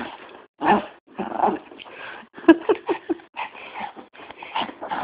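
Small white fluffy dog vocalizing in a string of short bursts while it plays.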